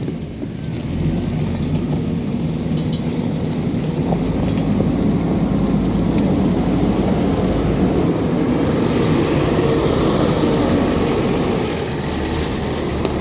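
JCB backhoe loader's diesel engine running steadily, easing off slightly near the end.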